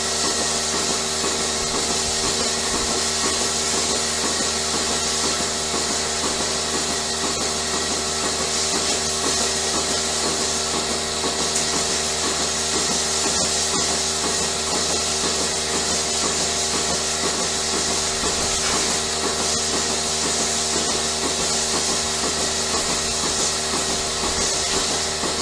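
A machine running steadily: a constant hum with a fast, even pulsing and a hiss above it, unchanged throughout.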